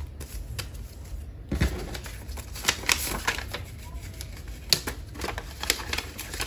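Paper dollar bills rustling and flicking as they are counted out and slid into a cash envelope: a run of irregular crisp clicks and crinkles.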